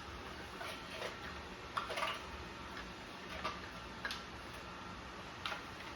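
Faint, irregularly spaced light clicks, about eight over a few seconds, over a low room hum.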